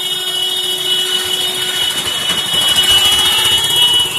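Potato patties frying in shallow oil on a large iron griddle (tawa), sizzling, under a steady high-pitched whistling tone.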